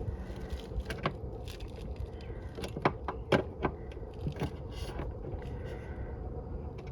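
Scattered small clicks, taps and scrapes from hands handling tools and parts while working on an air conditioner, over a steady low background noise.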